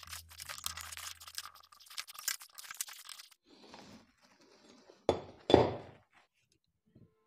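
Screwdriver backing screws out of an air-conditioner control board: a quick run of small metal clicks and scrapes, then two louder handling knocks about five seconds in as the board and its parts are moved.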